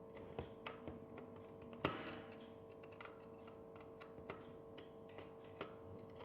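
Faint, scattered small clicks of a screwdriver turning a small screw in a camera body, the loudest about two seconds in, over a steady faint hum.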